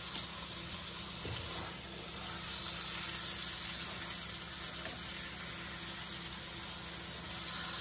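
Steak sizzling steadily in butter and oil in a frying pan. There is a sharp click near the start and a few faint knocks as tongs move the meat in the pan.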